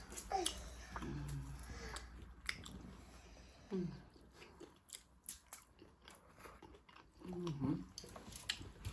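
Close-up eating sounds: chewing and biting with small crunches and wet mouth clicks, broken by a few short murmurs.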